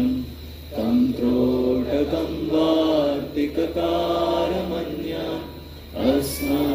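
Group of men chanting mantras in unison, in long held phrases with two short breaks for breath.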